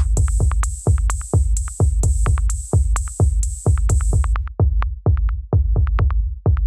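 Electronic music with a steady drum-machine beat, about two beats a second. A high hissing layer over the beat cuts out about two-thirds of the way in, leaving the bare beat.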